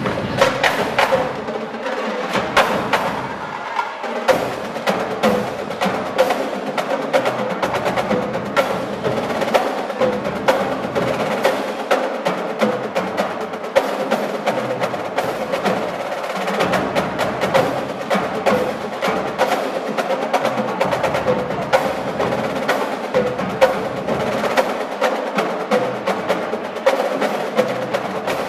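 A drumline of snare drums, tenor drums and bass drums playing a fast, continuous cadence of dense, rapid strokes with no break.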